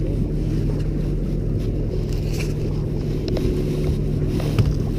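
A boat's motor running steadily with an even low hum, and a few light clicks and one louder knock near the end.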